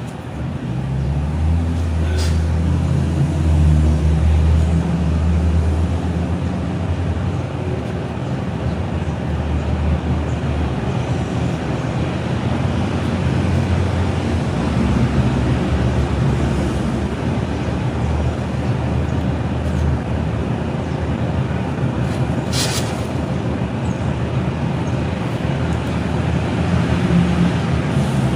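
A steady low rumble with an even noise over it, and a sharp click about two seconds in and another late on.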